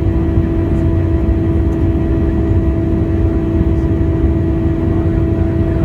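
Cabin noise inside an Airbus A321 airliner: a steady low rumble of the engines and airflow with a constant droning hum over it.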